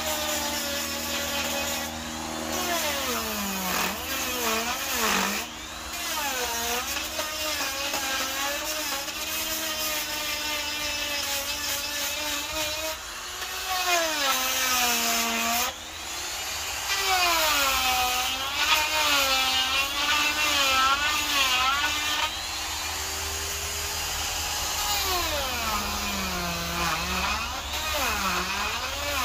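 Makita electric die grinder with a carving burr cutting into a wood log: a loud motor whine that repeatedly sags in pitch as the burr bites into the wood and climbs back as the load eases.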